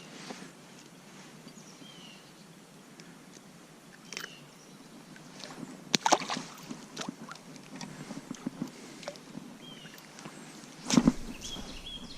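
Outdoor creek ambience with handling noises: scattered clicks and rustles, with two louder knocks about 6 and 11 seconds in. A bird gives short chirps every few seconds.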